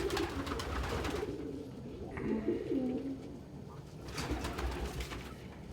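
Domestic pigeons cooing in low, warbling phrases, with two short spells of rustling, at the start and about four seconds in.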